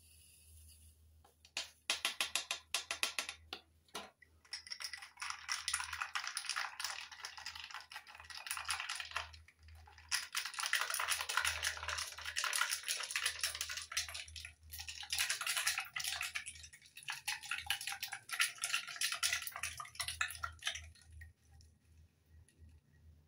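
A drink being stirred with a plastic straw in a glass: rapid clinking and rattling against the glass in several bouts with short pauses, stopping a couple of seconds before the end.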